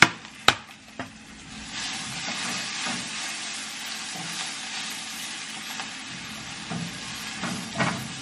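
Three sharp knocks about half a second apart, then spinach sizzling steadily in a hot pan from about two seconds in, with a few light utensil knocks near the end.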